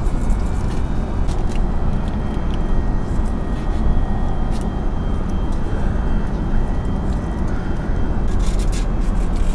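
Steady cabin noise of an airliner in flight, with scattered small clicks and crinkles of a foil butter wrapper and cutlery being handled.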